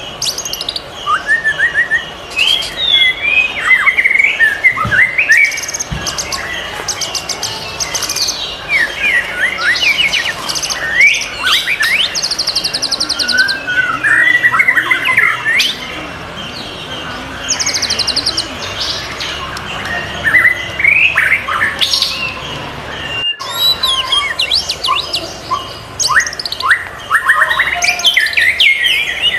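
White-rumped shama singing a loud, varied song of whistled notes that sweep up and down, broken by fast trills. There is a brief gap in the sound about three-quarters of the way through.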